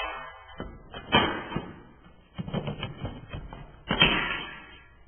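A series of irregular knocks and thuds, objects or steps on a wooden floor, with the loudest knock about four seconds in.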